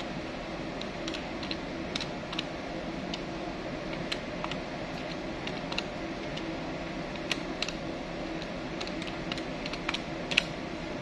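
Keys of a Woodman desktop electronic calculator being pressed, some with a pen tip, in quick, irregular clicks, the loudest near the end. A steady low hum runs underneath.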